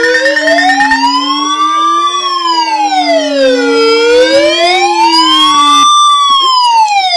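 Electronic siren-like wail, its pitch rising and falling slowly about once every four seconds over a steady lower drone. The drone drops out near the end and the wail cuts off suddenly.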